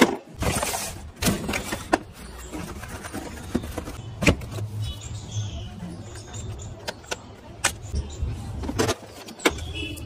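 Handling noises of a plastic RC toy car and its remote: scattered clicks, knocks and rustles as they are lifted, turned over and set down on a hard floor.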